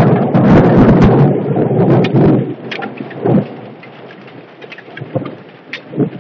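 A clap of thunder breaks out suddenly and rumbles for about two and a half seconds, then fades, with a smaller swell a second later. Under it, hail and heavy rain patter steadily on surfaces, with many small sharp hits.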